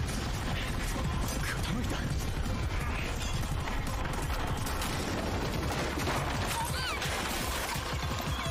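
Dense, continuous rattling and clattering sound effects from the anime's soundtrack, with a few short high gliding squeals near the end.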